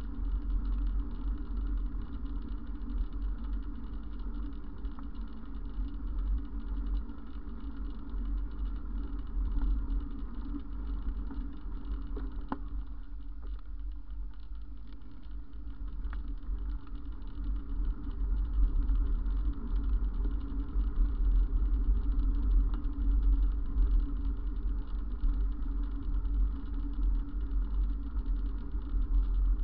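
Steady low rumble of wind and road vibration on a bicycle-mounted camera while riding, with the engine noise of traffic, including a city bus passing close by at the start; it grows somewhat louder in the second half.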